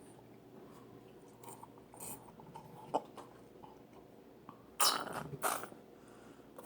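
Light clicks and knocks of a small plastic doll being handled, with a sharper knock about three seconds in and two short noisy bursts near the end.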